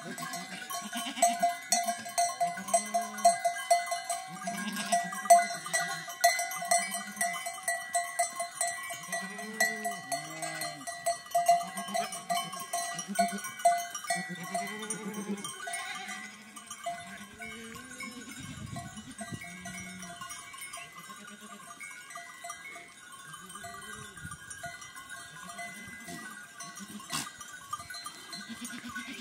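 A flock of sheep and goats bleating over and over, with livestock bells ringing steadily underneath. The bleating is busiest at first and thins out a little past halfway.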